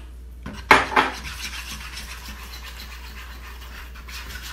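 A wire whisk stirring and scraping through flour and wet dough in a mixing bowl, a steady scratching, with two sharp knocks just under a second in.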